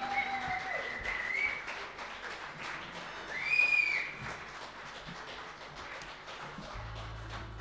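Audience applause with sharp whistles after a live song ends. One loud, high whistle rises and falls about three and a half seconds in.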